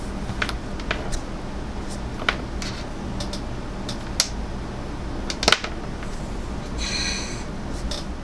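Handling noise from a small on-camera microphone and its coiled cable being set down on a desk: scattered light clicks and taps, a sharper double knock about five and a half seconds in, and a brief rustle near the end, over a steady low hum.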